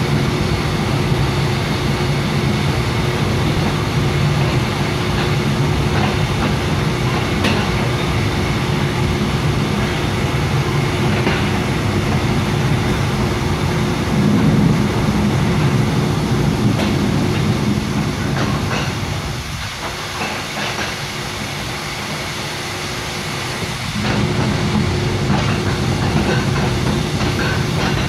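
Mugunghwa-ho passenger train running, heard from inside the carriage: a steady low rumble of wheels on rail under a constant hum, with occasional faint clicks. The rumble drops for a few seconds about two-thirds of the way through, then comes back.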